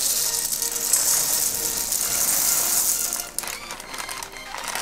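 Dry elbow macaroni poured from a plastic packet into a metal kadhai: a dense, continuous rattle of hard pasta pieces hitting the pan and each other. It stops about three seconds in, leaving a few scattered clicks of last pieces.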